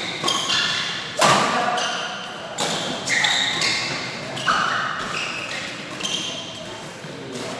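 Badminton rally: rackets strike the shuttlecock about five times, roughly every one and a half seconds, the loudest hit about a second in, with shoes squeaking on the court between shots.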